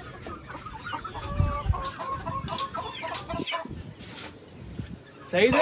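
Caged roosters clucking with short calls, then a rooster starting a loud crow near the end.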